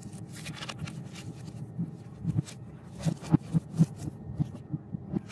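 Paper and plastic packaging rustling and being handled on a wooden desktop, with irregular clicks and a run of soft knocks in the second half.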